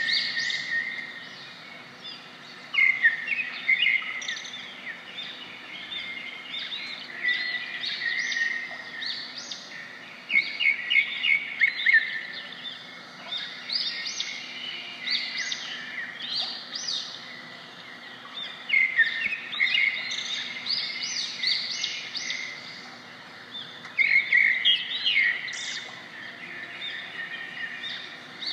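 Several small birds chirping in quick runs of short, high notes, one run after another with brief lulls between.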